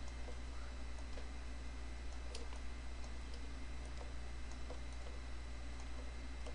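Faint, irregular clicks of a computer mouse and keyboard, roughly one a second with a slightly louder one about two seconds in, over a steady low electrical hum.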